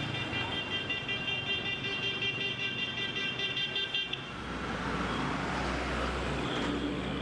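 A vehicle horn sounds continuously for about four seconds, its tone pulsing rapidly, then cuts off. After it, street traffic noise with a steady low engine rumble.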